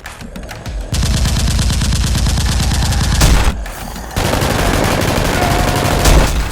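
Rapid automatic gunfire in two long bursts: the first begins about a second in, and after a short lull a second burst runs until shortly before the end.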